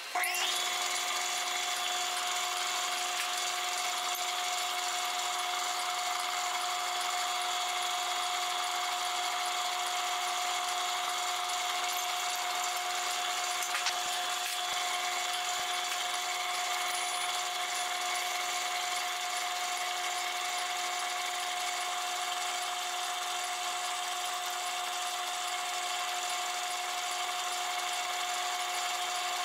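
Metal lathe running at a constant speed with a steady whine while a 1/4-inch pilot drill in the tailstock is fed slowly into a hard naval brass gear blank. A single light click about halfway through.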